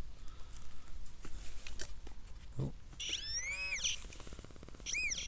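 Nokta Simplex Ultra metal detector sounding on a target as a soil clod is checked over the coil: a pitched signal tone that rises and falls, a longer buzzy one about three seconds in and a short one near the end. Soft crumbling of soil before it.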